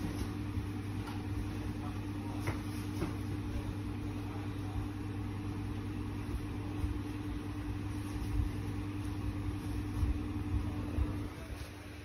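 A steady low hum over a noisy background, with a few faint clicks, that drops away near the end.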